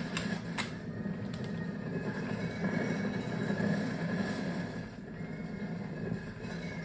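Layered cassette tape loops played on Walkmans through a small mixer: a dense, low drone with a steady high tone above it, dipping a little about five seconds in. Two sharp clicks sound near the start.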